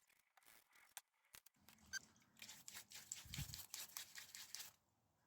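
Faint handling noises of bike parts being worked on: a few scattered clicks, then a scratchy, crackly rustle for about three seconds with one dull knock partway through.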